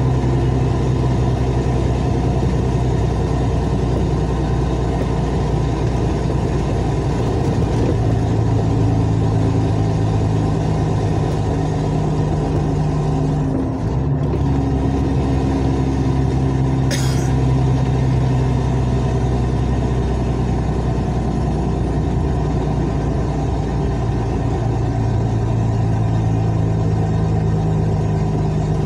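Car engine running steadily with a loud, rough exhaust note, because the exhaust flex pipe has burst and the exhaust escapes before the muffler. The engine note dips briefly about halfway through, then carries on.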